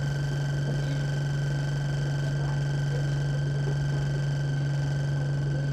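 Alexander Dennis Enviro200 Dart bus running, heard from inside the passenger cabin as a steady low hum with a faint high whine.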